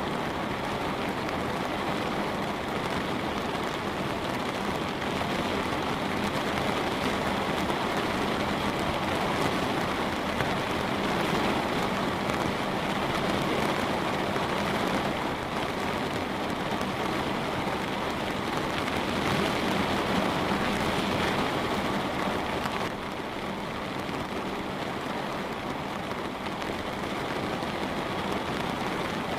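Light rain falling on a window pane, a steady dense hiss of drops that eases a little about three-quarters of the way through.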